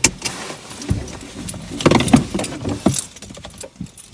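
Irregular clicks and jangling rattles of things being handled in a car just after parking, busiest about two seconds in.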